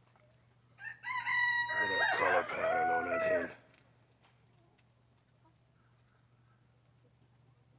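A Silver Laced Wyandotte rooster crows once, starting about a second in: one call of nearly three seconds, held level and then dropping in pitch at the end.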